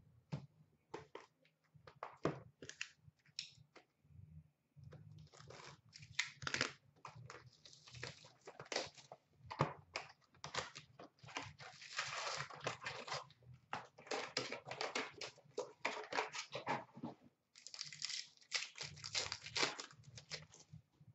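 Upper Deck Artifacts hockey card box and foil packs being handled and opened: a quick run of papery rustles, crinkles and tearing as wrappers are ripped and cards slid by hand, busiest in the middle and latter part.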